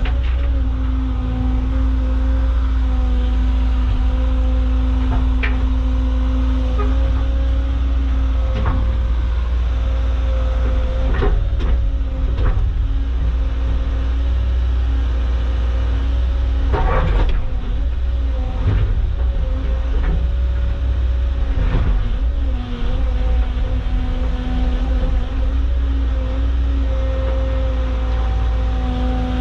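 Caterpillar excavator's diesel engine running steadily under load, heard from inside the cab, its pitch shifting now and then as the hydraulics work. Occasional knocks and clunks come from the digging, the loudest about seventeen seconds in.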